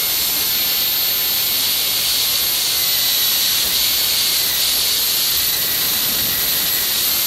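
High-speed dental handpiece spinning a diamond bur against a plastic typodont molar to reduce a cusp: a steady hiss with a thin, very high whine that dips briefly in pitch now and then.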